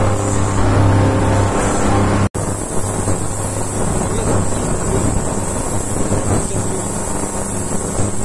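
Skymen ultrasonic cleaner running with carburettor parts in its tank of cleaning solution: a loud, steady buzz with a low hum and a thin high tone. The sound drops out for an instant about two seconds in, then carries on.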